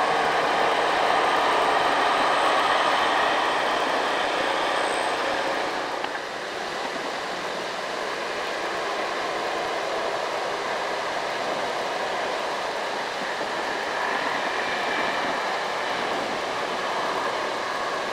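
Mitsubishi Canter trucks driving up a long incline: steady diesel engine and road noise. There is a small dip in level about six seconds in, where a second truck comes into view.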